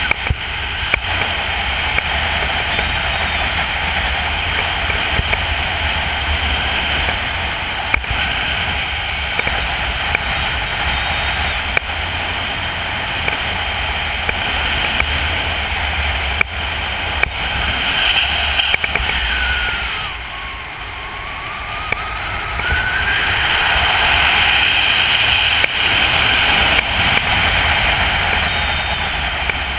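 Wind rushing over a skydiver's head-mounted camera during parachute canopy flight: a steady noise with a few faint clicks, which dips briefly about two-thirds of the way through and then grows louder.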